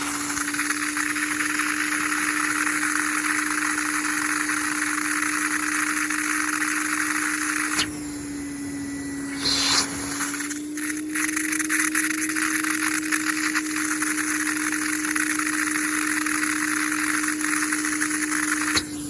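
Wet/dry vacuum running steadily, a constant motor whine over a rush of air, its hose held against an air conditioner's condensate drain pipe to suck water and sludge out of the clogged line. About eight seconds in the air rush drops for around two seconds, then comes back.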